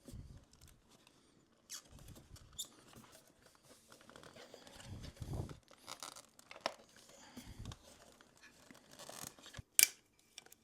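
Scattered clicks, rustles and dull knocks of parts and tools being handled during motorcycle bodywork assembly, with one sharp, loud click near the end.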